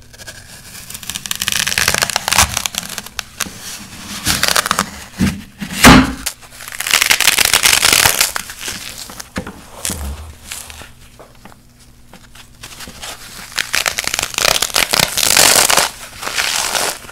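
Baked black floral foam with a set layer of recycled foam paste being broken and crushed by hand: dry crunching and crackling in bursts, with one loud crack about six seconds in.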